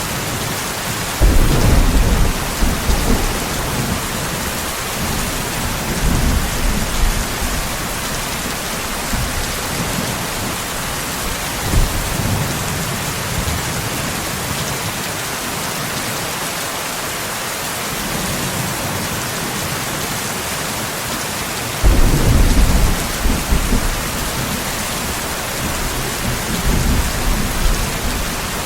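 Steady rain hissing, with thunder rumbling over it: a loud rumble breaks in about a second in and another about 22 seconds in, and fainter rumbles come between.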